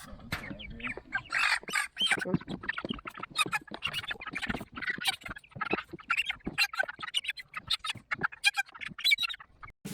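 A flock of three-week-old meat chickens peeping and squawking, many short calls overlapping.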